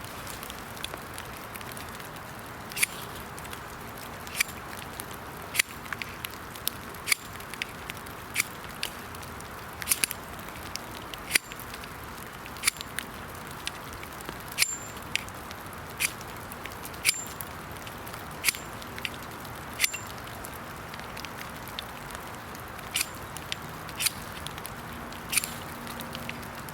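Steel knife spine striking a flint again and again, a sharp click about every second and a half, over a steady hiss of rain.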